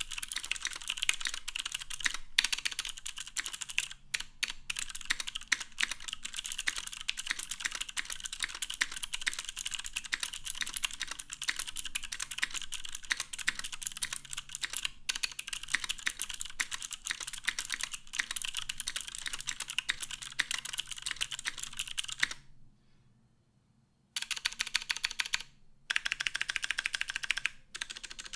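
Fast, continuous typing on a Matrix 8XV1.0 mechanical keyboard with clicky Cherry MX Green switches on a top-mounted full aluminium plate, GMK keycaps and no dampening foam. The typing stops for about a second and a half near the end, then starts again.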